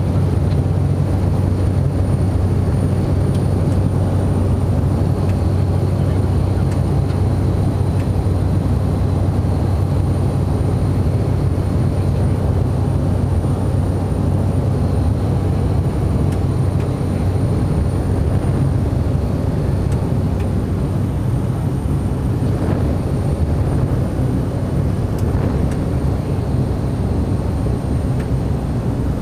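Cessna Caravan amphibian's PT6A turboprop engine and propeller in flight, heard from inside the cockpit: a steady low drone with a thin high turbine whine above it, easing off slightly in the later part.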